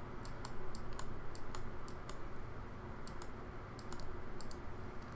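Light, irregular clicking of a computer mouse and keyboard, a few clicks a second, with a short pause about two seconds in, over a faint low hum.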